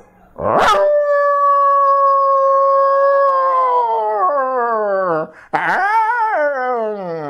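A man imitating a dog's howl with his voice: one long call held on a steady pitch, sliding down about halfway through, then a second, shorter howl that falls away near the end.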